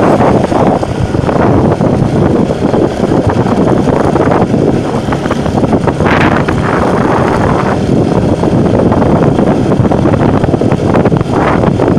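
Bajaj Pulsar NS200's single-cylinder engine running as the motorcycle climbs a rough dirt track, heavily mixed with wind buffeting on the camera's microphone.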